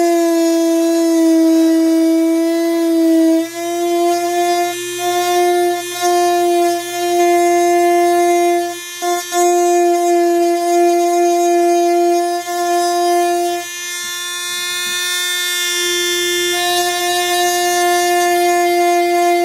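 Small high-speed power tool motor running with a steady high-pitched whine while shaping a guitar saddle; its pitch sags slightly and it drops out briefly a few times as it works.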